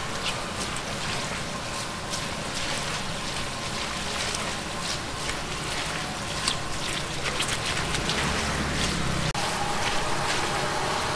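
Sweet potato balls and taro balls deep-frying in a wok of oil, sizzling steadily with a constant scatter of small crackling pops as they are pressed and stirred with a slotted metal press.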